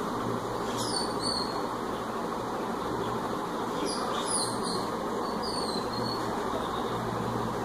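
Steady background noise with a low hum, and a bird chirping a few short, high, falling notes about a second in, again around four seconds in, and once more near six seconds.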